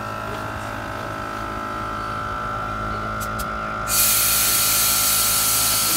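Camper trailer's onboard air compressor running with a steady hum, working the airbag suspension to raise or lower the trailer for levelling. About four seconds in, a loud hiss of rushing air starts and keeps going.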